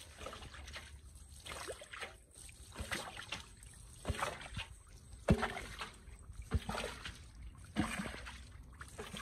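Muddy water being bailed from a shallow ditch with a metal basin: a scoop and a splashing throw about once a second, over and over.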